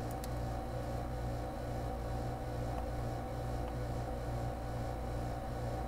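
A steady low hum with a fainter higher drone above it, unchanging throughout, with a few faint ticks.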